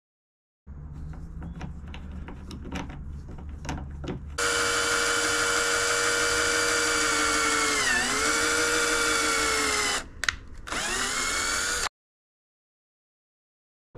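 Cordless drill running steadily as it bores a hole into a high-density polyethylene standoff. Its whine dips in pitch briefly about halfway through as the bit loads up, stops for a moment, then runs again before cutting off. Before the drill starts there are a few seconds of quieter clicks and scraping.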